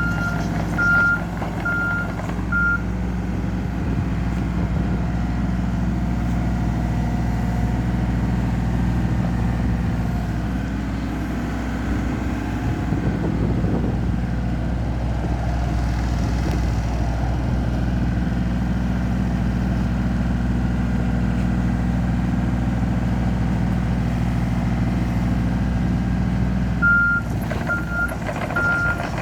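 Volvo EC27C mini excavator's diesel engine running steadily, with its travel alarm beeping about twice a second at the start and again near the end.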